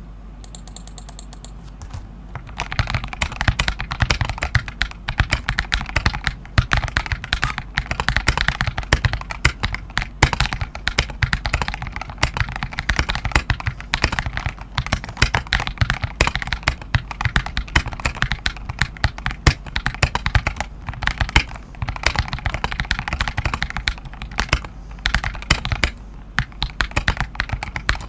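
Typing on a mechanical keyboard, an NK87 Entry Edition, in a fast continuous run of key strokes that starts about two seconds in.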